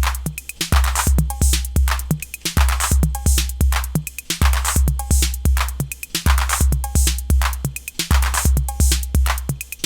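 TR-808 clone drum machine playing a looped programmed pattern: long booming 808 bass drums, hissy hi-hat and cymbal strokes, and short pitched mid-tom hits. The pattern stops right at the end.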